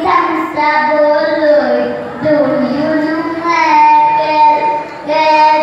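A young boy singing solo into a microphone, his voice carried over a sound system, gliding between notes and holding one long note about three and a half seconds in.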